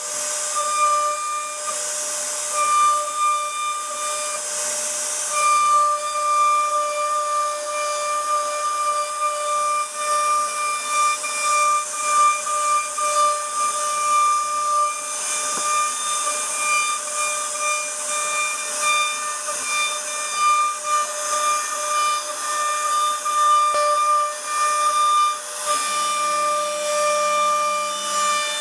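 CNC router spindle running with a steady high whine over a hiss of cutting as it carves a 2.5D design in wood. The whine breaks off briefly a few times in the first seconds, and its tone shifts, with lower tones joining in, near the end.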